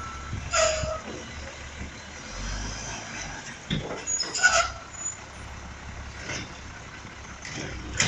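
Heil DuraPack Rapid Rail side-loading garbage truck moving off after backing up: the diesel engine rumbles under load in the middle, and its air brakes hiss with a short squeal twice, about half a second in and again about four and a half seconds in. The tail of the reversing beeper sounds at the very start.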